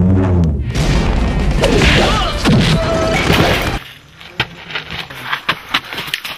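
Dramatic film soundtrack with drumbeats and a loud crashing sound effect. It cuts off suddenly about four seconds in, leaving quieter live sound with a few sharp knocks and scuffles.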